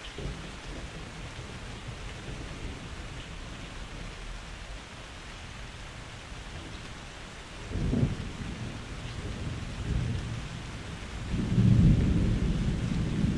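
Steady rain with rolling thunder. A rumble swells about eight seconds in, and a louder, longer one builds near the end.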